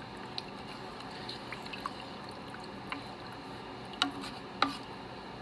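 Wooden spoon stirring onion broth in an Instant Pot's metal inner pot: soft sloshing of liquid with light scrapes and clicks. About four seconds in come two sharper knocks of the spoon against the pot, half a second apart.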